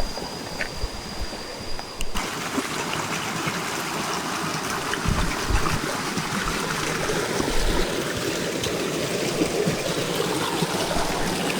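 Rushing stream water, a steady wash. About two seconds in it cuts in suddenly, replacing a quieter stretch that carries a thin, steady high whine.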